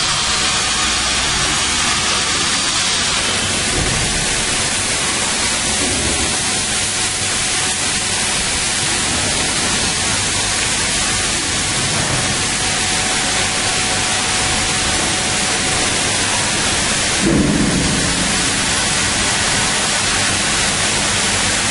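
Loud, steady hiss of noise with no clear tone or rhythm, broken by a short low thump about seventeen seconds in.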